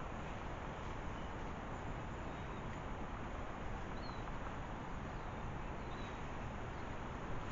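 Steady outdoor background hiss with a few faint, brief bird chirps scattered through it.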